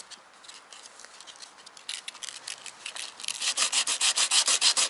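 Painted plastic car bumper being hand-sanded with a small piece of sandpaper, in quick back-and-forth strokes of about seven a second. The strokes are light and sparse at first, then become steady and louder from about three seconds in.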